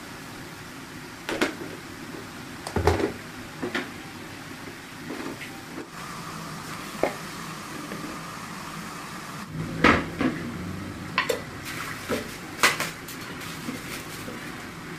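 Kitchen clatter: a scattering of sharp knocks and clinks as containers and cookware are handled and set down by a gas stove. Under them runs a steady low hiss from the burner and the pan of boiling water.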